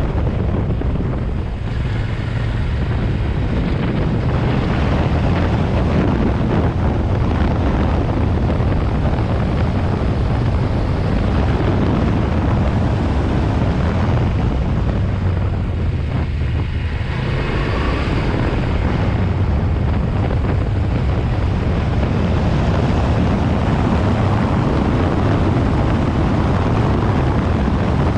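Yamaha Ténéré 700's 689 cc parallel-twin engine running steadily under way, mixed with wind noise on the microphone. The engine note changes briefly about two-thirds of the way through.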